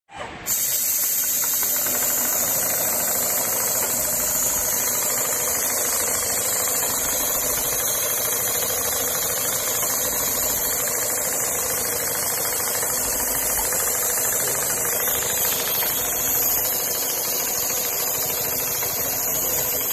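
CNC sewing machine running steadily, stitching at speed: a rapid, even mechanical clatter over a steady high hiss, starting about half a second in.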